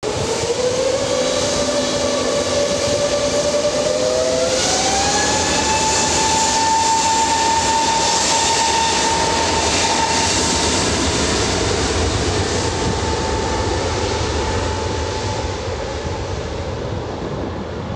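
Airbus A320neo's CFM LEAP-1A turbofans whining as the airliner taxis, with a rushing jet noise underneath. The whine rises in pitch as the engines spool up, sharply about four to five seconds in, then holds steady and slowly grows fainter near the end.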